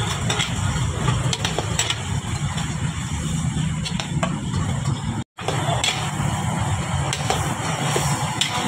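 Cut yardlong beans stir-frying in a large metal wok: a steady sizzle over a low rumble, with a metal ladle scraping and clinking against the wok now and then. The sound drops out briefly about five seconds in.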